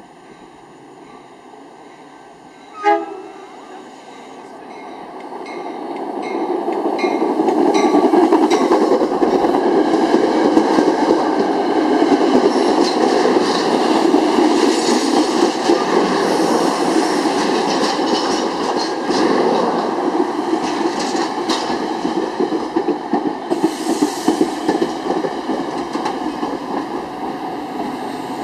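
Metra commuter train of bilevel gallery cars sounds its horn in one short blast about three seconds in, with a bell ringing steadily. The train then comes up loud and rolls past close by, a heavy rumble with the wheels clicking over the rail joints.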